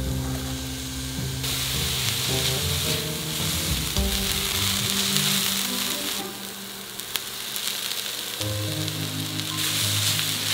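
Diced onion sizzling in hot oil in a stainless steel skillet, stirred with a wooden spatula. The sizzle sets in about a second and a half in and stays steady, over background music.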